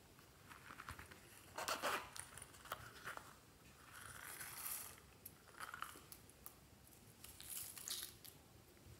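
The zipper of a small rubbery coin purse being pulled open, with crinkly rustling as it is handled and its sequins and glitter flakes are shaken out onto slime. The sound comes in short spells of scraping and crackle, the loudest a little under two seconds in.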